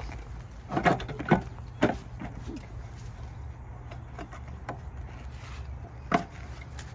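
A 3S electric meter being pushed into its meter socket: a few sharp knocks and clicks as it goes in, three close together about a second in and one more near the end.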